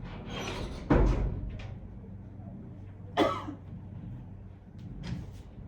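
A woman faking a coughing fit: a sudden cough with a dull thump about a second in, and another short cough about three seconds in.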